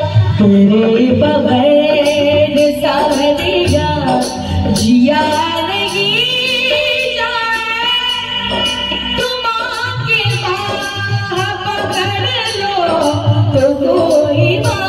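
A woman sings a Hindi devotional bhajan to Khatu Shyam, amplified through a stage sound system, over live accompaniment with steady drum beats and jingling percussion.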